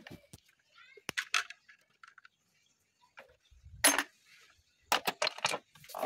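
Metal hand tools clinking and tapping on a Peugeot 2.0 petrol engine's aluminium cylinder head: scattered sharp clinks, the loudest about four seconds in, then a quick run of several near the end.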